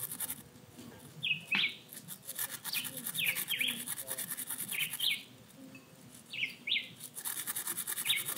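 Wire brush scrubbing the threads of a small M6 bolt in quick back-and-forth strokes, cleaning dirt out of the threads, in spells with a pause of about two seconds past the middle. A small bird chirps repeatedly in short downward-sweeping notes.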